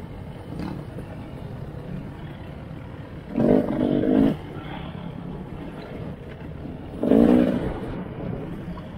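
Dirt bike engine heard from on board, running steadily under the ride's noise and revving up loudly twice, about three seconds in and again about seven seconds in.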